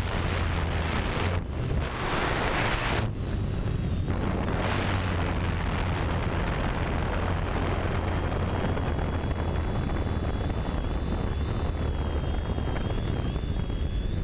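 TBS Discovery Pro quadcopter's motors and propellers running steadily, heard through its onboard camera with wind rushing over the microphone, gusting louder about two to three seconds in. A thin high whine wavers slightly in pitch in the second half.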